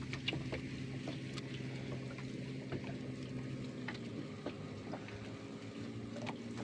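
Small boat engine idling with a steady low hum, with faint scattered clicks and taps from the fishing line being handled.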